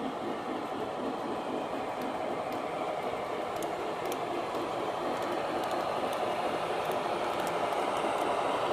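O scale model train running along the track, a steady rolling rumble that slowly grows louder as it comes closer.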